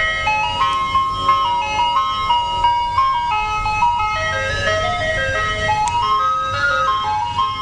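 Ice cream truck playing its chiming jingle, a melody of short stepped notes repeating, over a low engine hum.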